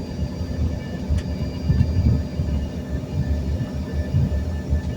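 Jet airliner cabin noise heard from a seat behind the wing during the takeoff roll: a loud, uneven low rumble with faint steady engine whine tones above it.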